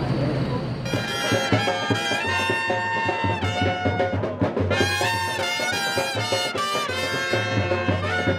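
Brass band music with trumpets in the lead, starting abruptly about a second in.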